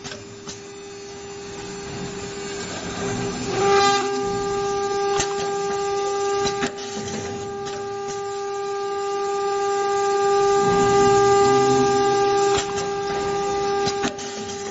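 Automatic door-handle milling, pin-hole drilling and pin-punching machine running, with a steady high-pitched whine from its spindles. A few sharp clicks and knocks come as it works, and the sound gradually grows louder.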